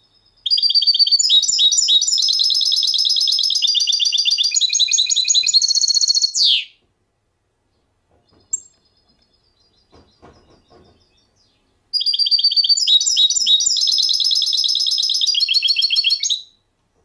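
A songbird singing two long songs, each made of fast runs of repeated high notes that change pitch from section to section. The first song ends in a quick downward sweep.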